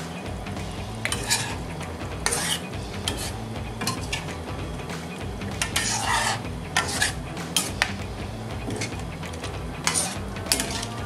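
A utensil stirring a soupy fish stew in a metal pan, scraping and clinking against the pan at irregular moments, a few times a second in places.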